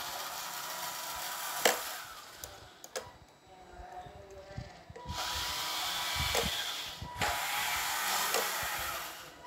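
Small DC gear motors of a homemade two-motor RC car whirring as the transmitter drives it, the pitch rising and falling with speed. The whir drops away for a few seconds in the middle and comes back louder, with a few sharp clicks.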